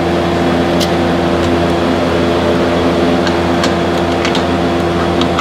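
Steady machine hum from a running motor, with a few light metallic clicks of a socket on a brake line fitting.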